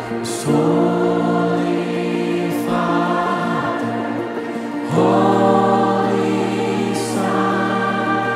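Live worship music: sustained chords with several voices singing long held notes, the chord changing about half a second in and again about five seconds in.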